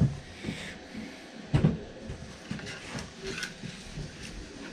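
Knocks and clunks of handling on a workbench as a lead ingot is fetched and set down as a weight, the loudest a heavy clunk about a second and a half in, with smaller knocks after.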